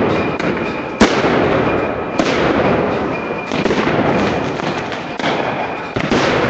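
A single sharp explosive bang about a second in, over the steady din of a large crowd in the street. A few softer sudden knocks follow later.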